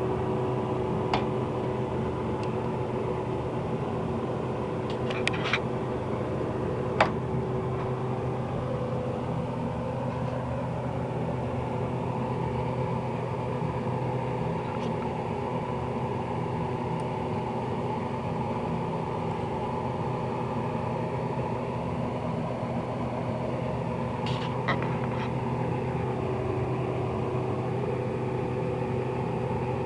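Angle grinder's electric motor running steadily with a constant whine, with a few sharp clicks or knocks, the loudest about seven seconds in.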